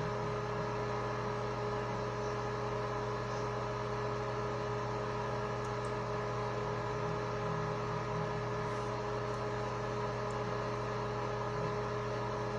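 A steady electrical hum with a few constant low tones and a faint even hiss, unchanging throughout.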